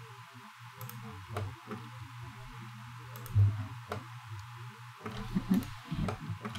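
Computer mouse buttons clicking, a few scattered sharp clicks about a second apart, over a steady low hum. There is one louder low thump about three and a half seconds in.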